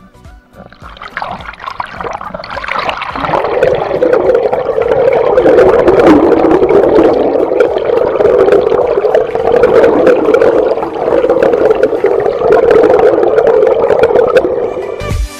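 Muffled rushing and bubbling of river water heard through a camera held underwater, building up over the first few seconds and then staying loud and steady.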